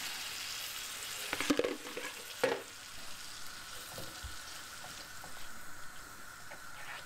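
Minced beef, carrots and peppers sizzling in a frying pan as beef stock is poured in and stirred with a wooden spoon. The sizzle eases a little as the stock goes in, with a few knocks of the spoon about one and a half and two and a half seconds in.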